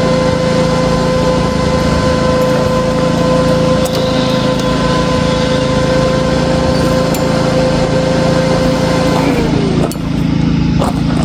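A power tool's electric motor running at a steady whine over a continuous low hum, then switched off nearly ten seconds in, its pitch falling as it winds down.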